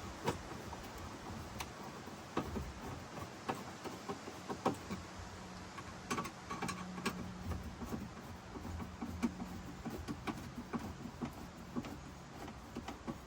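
Irregular light clicks and knocks of parts and tools being handled during reassembly work, over a faint steady hum.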